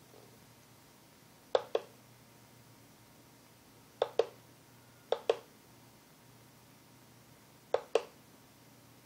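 Rotary encoder's push-button clicking, four times, each a quick pair of sharp clicks as it is pressed and released, stepping the LED matrix to the next row. A faint steady hum sits underneath.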